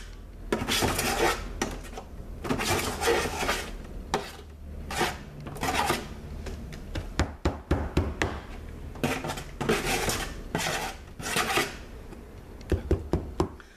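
A metal spoon scraping thick soap batter out of a roaster oven's metal pan in repeated uneven strokes, with sharp clinks of the spoon against the pan, clustered in the middle and again near the end.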